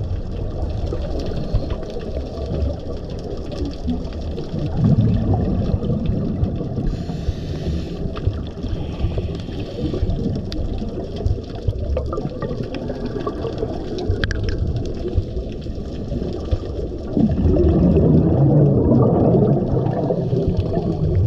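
Muffled underwater water noise heard through a diving camera's housing, with louder bubbling surges about five seconds in and again from about seventeen seconds on, from scuba exhalation bubbles, and a few faint clicks.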